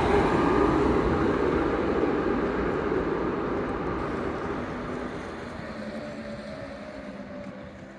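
A tram passing and rolling away, its rumble fading steadily.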